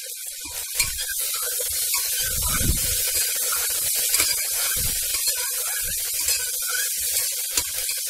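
Sliced onions, whole spices and green chillies sizzling in hot oil and ghee in an aluminium pressure cooker, with a steady hiss. A spoon stirring them scrapes and knocks against the pot several times.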